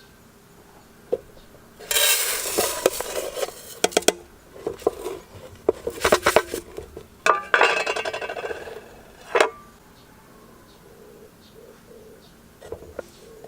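Metal cookware clattering: several bursts of rattling and clinking, the longest about two seconds, with single sharp clinks between them.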